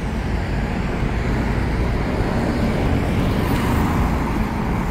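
Street traffic: a steady low rumble of car engines and tyres on the road, swelling slightly in the second half as a car drives past close by.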